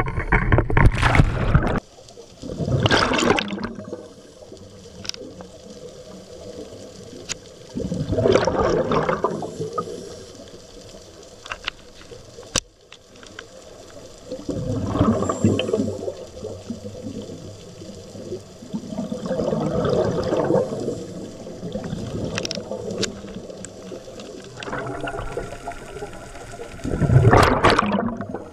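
Underwater scuba breathing heard from the diver's camera: bursts of rushing, gurgling exhaled bubbles from the regulator, coming in about every five to six seconds, with quieter water noise between them.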